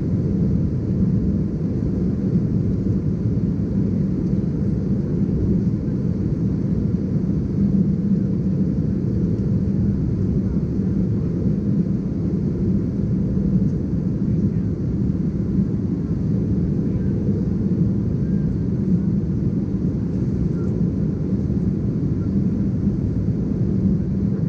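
Steady low cabin drone of an Embraer ERJ-190 airliner in flight, heard from a window seat: its General Electric CF34-10E turbofans and the airflow over the fuselage make a rumble with a hum in it that holds even throughout.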